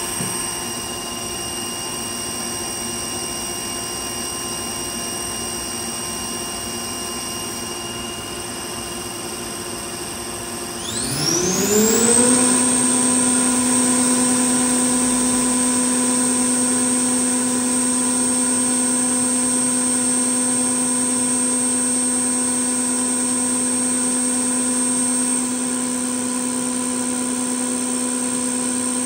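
Citizen L12 Swiss-type CNC lathe's main spindle spinning up with a rising whine about eleven seconds in, then running steadily at 15,000 rpm with a high, even whine. Before the spin-up the machine gives a quieter steady hum with a few fixed tones.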